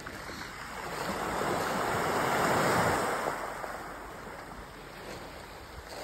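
Small sea wave washing up a pebble beach. The surf swells to its loudest about two and a half seconds in, then fades as the water draws back.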